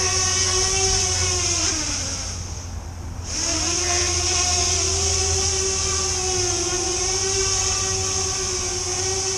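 Brushless electric motors and propellers of a Fimi Manta tiltrotor drone whining steadily in hover. Near two seconds the pitch falls and the sound dips as the throttle comes down, then just after three seconds it picks up sharply and climbs back to a steady hover whine.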